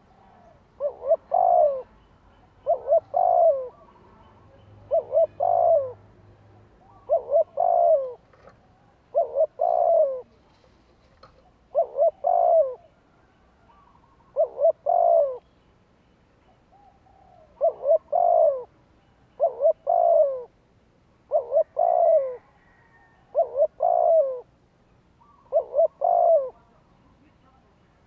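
Spotted dove cooing: a short phrase of two or three notes repeated about every two seconds, with one longer pause just past the middle.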